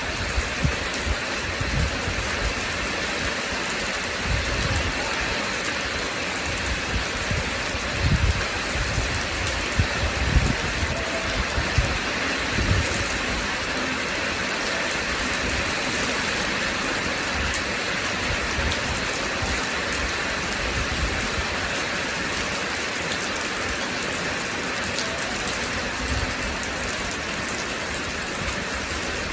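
Steady rain falling, with irregular low rumbles through the first half.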